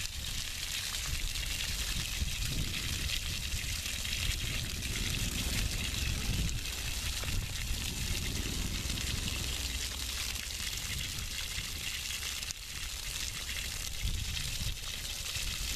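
Water spraying steadily from a hose on a yard hydrant and splashing on the ground, a continuous hiss. The well is being run to flush chlorinated water through the system after shock chlorination.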